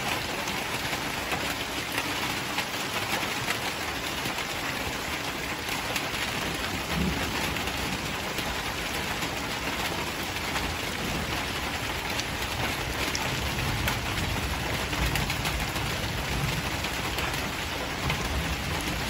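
Rain falling steadily: an even hiss of drops.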